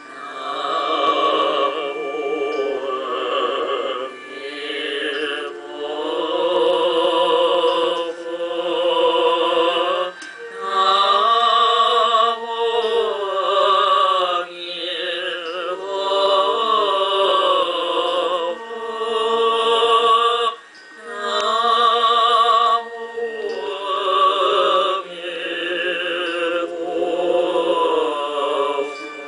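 Background music: a slow song sung with heavy vibrato, in long held notes and phrases of a few seconds separated by short breaths.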